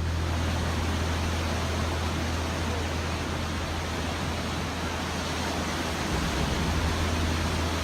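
Steady rushing noise of sea wind and ocean surf, with a constant low rumble.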